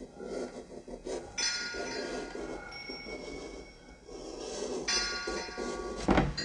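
Metal struck twice, each strike left ringing with several high steady tones for a few seconds, then a sharp heavy knock near the end.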